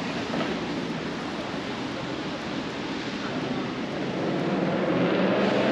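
Steady rain hiss, with a motor vehicle's engine growing louder from about four seconds in, its pitch rising slightly.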